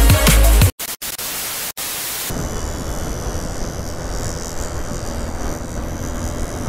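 Music cuts off under a second in. After a couple of brief dropouts comes a short burst of bright hiss, then steady wind rush and road noise from a Honda Unicorn 150 motorcycle riding in traffic, heard on a mic mounted on the bike or rider.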